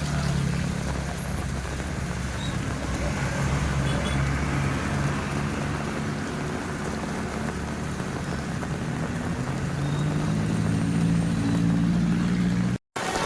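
Diesel bus engine running steadily with a low drone, growing louder in the last few seconds as it comes closer or works harder. A brief dropout near the end.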